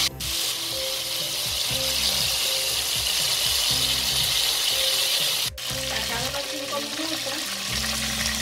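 Chicken drumsticks shallow-frying in hot oil in a pan: a steady sizzle, cut off briefly about halfway through.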